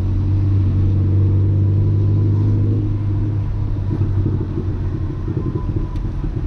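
Audi A3 1.8T's turbocharged four-cylinder engine running under way, heard from inside the car as a steady low drone. About three seconds in, the drone turns into a choppier, uneven rumble.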